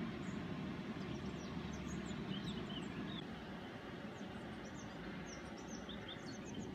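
Steady low rush of river water pouring over a weir, with small birds chirping in short, high calls throughout.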